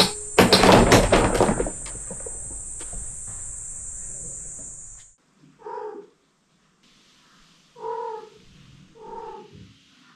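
A wooden box trap clatters loudly for about a second, just after a cat goes inside, over the steady chirring of crickets. After the crickets stop, a cat meows three times from inside the closed wooden box.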